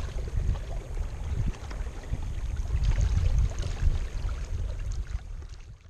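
Wind buffeting the microphone in a low, uneven rumble, with water lapping and splashing against a kayak hull under way.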